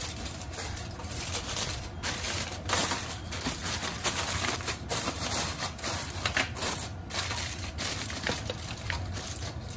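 Aluminium foil crinkling and crackling in an irregular run as a sheet is laid over a disposable aluminium pan and crimped down around its rim.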